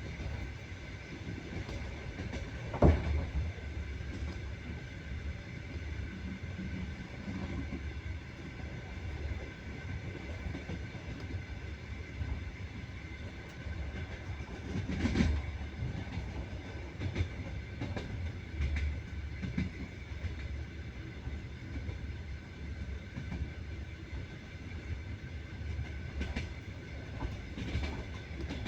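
Train wheels running on the rails: a steady low rumble broken by occasional knocks as the wheels cross rail joints, the loudest about three seconds in and another about fifteen seconds in.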